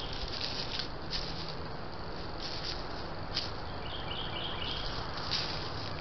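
White-tailed deer walking over dry leaf litter and pine needles, its steps giving short, scattered rustles and crackles over a steady hiss. A few short high chirps come in about four to five seconds in.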